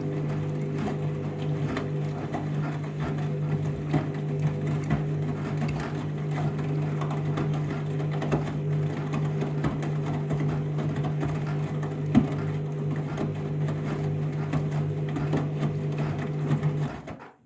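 Candy washing machine running steadily during its first rinse: a constant motor hum with scattered light clicks and knocks. It stops abruptly near the end.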